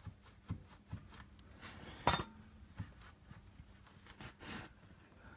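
Subaru Outback rear anti-roll bar knocking as it shifts in its worn bushings: a series of short, irregular knocks and clicks, the loudest about two seconds in.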